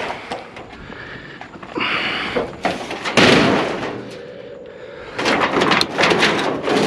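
Thin sheet-metal panels being crushed and folded, crumpling, scraping and clattering in irregular knocks, with one loud bang about three seconds in and dense rattling near the end.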